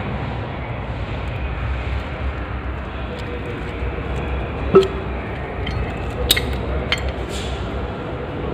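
Metal clinks of a motorcycle roller chain being worked onto the rear sprocket by hand: one sharp clank with a short ring about halfway through, then three lighter clicks, over a steady low background rumble.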